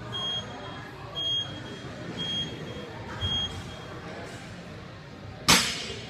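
Gym interval timer beeping four times about a second apart, a high electronic tone counting down to the start of the minute. About five and a half seconds in, a loud clank from the barbell loaded to 165 lb as it is pulled off the floor for the first deadlift.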